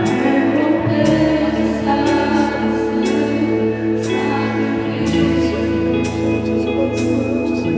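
Live gospel worship music: sustained keyboard chords and bass under singing voices, with a cymbal or drum stroke about once a second.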